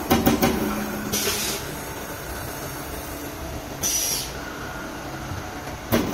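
CNC turret punch press at work: a quick series of punching strokes knocking through the sheet at the start, then the machine running between hits with two short bursts of air hiss, and the strokes start again near the end.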